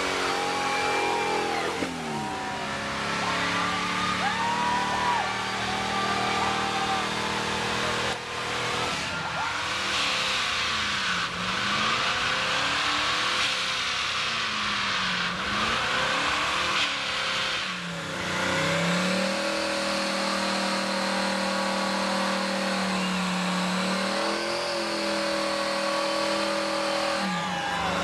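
Several car engines running at once, idling with repeated revs that drop and climb again, about ten to eighteen seconds in.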